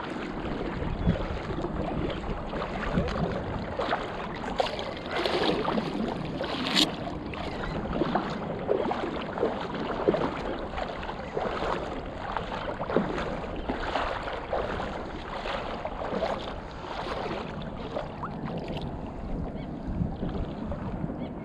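Shallow water sloshing and splashing steadily and irregularly around a wading angler's legs, with wind buffeting the microphone.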